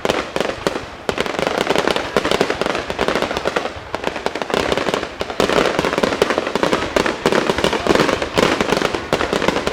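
Fireworks going off in a dense barrage: rapid, overlapping bangs and crackling with no gaps, growing louder about five and a half seconds in.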